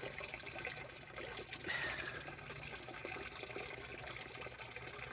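Water trickling steadily in a backyard fish pond, a soft even splashing, with a faint brief falling tone about two seconds in.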